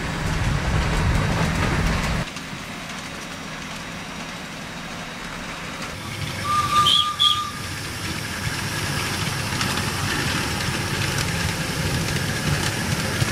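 Ride-on miniature railway train running, its low rumble cutting off about two seconds in. About seven seconds in a train whistle blows briefly, a high tone with a slight warble lasting about a second. Then the passenger train's rumble builds as it passes.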